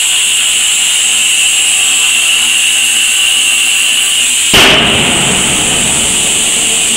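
Robotic plasma torch cutting steel pipe: a loud, steady hissing whine. About four and a half seconds in, a sudden loud burst as the cut ends; the whine drops away and a lower rush remains.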